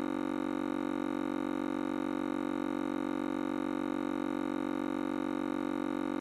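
A steady, unchanging hum-like electronic tone with many overtones, holding one pitch throughout.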